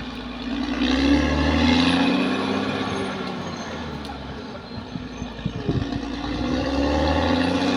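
Caterpillar D6R XL bulldozer's diesel engine working under load. The revs rise and fall twice, climbing about a second in and again near the end. Metallic clanks come in the quieter middle stretch.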